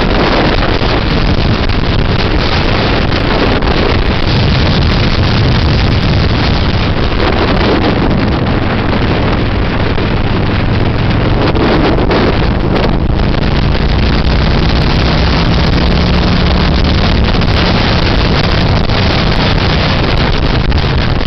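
Heavy wind rush on the microphone of a motorcycle at road speed, with the bike's engine note running underneath and shifting in pitch in the second half.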